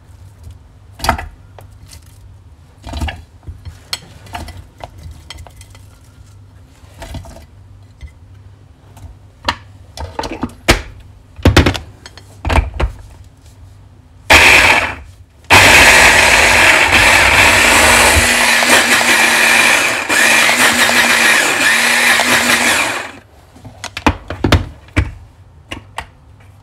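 Hand blender's motor unit driving its chopper attachment, finely chopping onion in the plastic bowl: one short pulse about fourteen seconds in, then about seven seconds of continuous running. Before it come scattered knocks of onion pieces and the blender parts being handled against the plastic bowl, and a few knocks after it as the motor unit comes off.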